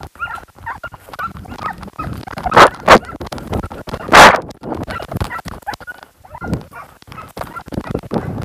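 Hare-hunting hounds yelping and baying in repeated short, high-pitched cries. Three loud rushes of noise cut across them, the loudest about four seconds in.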